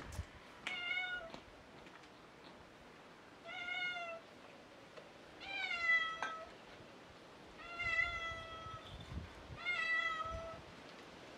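A cat meowing: five drawn-out meows, each rising and then falling slightly in pitch, about two seconds apart.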